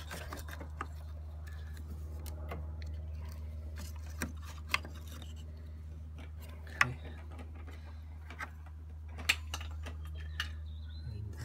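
Occasional sharp clicks and taps as the bonnet lock barrel and its plastic parts are worked by hand and pushed out of the housing, over a steady low hum.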